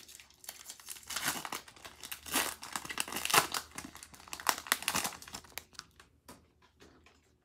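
Foil Pokémon booster pack wrapper crinkling as it is torn open by hand, in a flurry of crackling rustles that die down about six seconds in.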